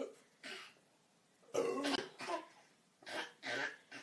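An 11-month-old baby making a series of short, throaty, cough-like grunts in imitation of burping; the loudest comes about two seconds in.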